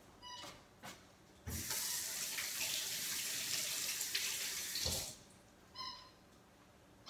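Tap turned on and water running into a sink for about three and a half seconds while hands are washed, then turned off.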